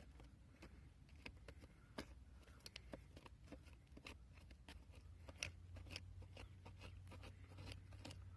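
Faint, irregular scrapes and clicks of digging through dirt and old dump debris, a couple of small ticks a second.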